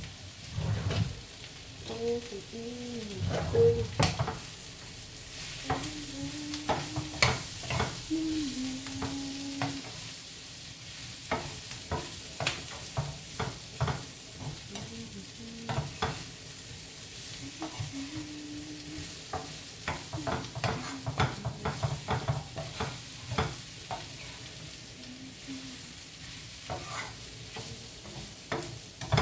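Meat, onion and zucchini sizzling in oil in a frying pan while a wooden spatula stirs them, knocking and scraping against the pan in many short clicks over a steady sizzle.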